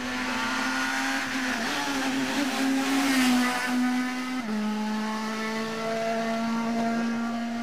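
Rally car passing at high revs, its engine note held steady under a swell of tyre and road noise. The pitch dips sharply once about halfway through, then climbs slowly as it pulls away.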